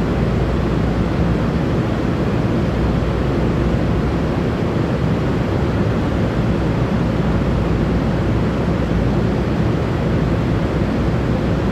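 Steady low rumble and hiss of an underground railway station's background noise, with faint steady hums and no distinct events.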